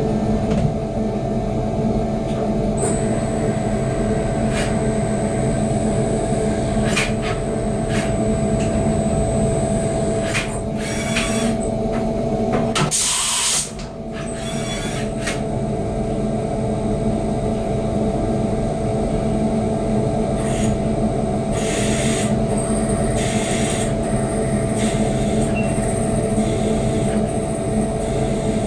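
CNC vertical milling machine running: a steady hum with a high whine that comes in about three seconds in, a few sharp clicks, and short bursts of hiss around the middle and again near the end.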